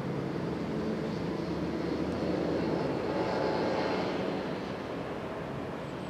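Fenniarail Dr18 diesel locomotive approaching from a distance, its engine drone swelling to a peak about halfway through and then easing off a little.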